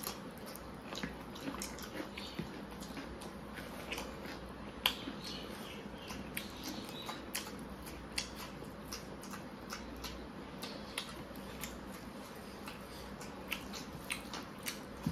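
Two people eating rice and curry with their fingers, heard close up: chewing and lip-smacking, a run of irregular sharp wet clicks, the loudest about five seconds in, over a low steady hum.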